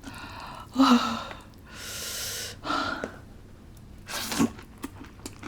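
A person gasping and breathing out hard while eating spicy noodles. There are two short voiced "hah" sounds about a second apart, a long breathy exhale between them, and a quick sharp breath near the end.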